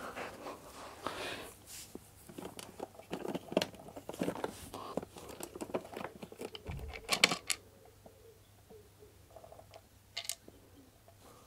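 Plastic clicks, knocks and rustles as a Kenwood food chopper is handled, turned over and its plastic base cover lifted off, with one louder knock about seven seconds in.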